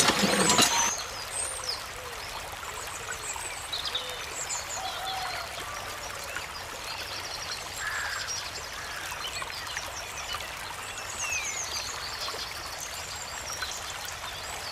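Steady trickling water with small birds chirping throughout. Background music fades out about a second in.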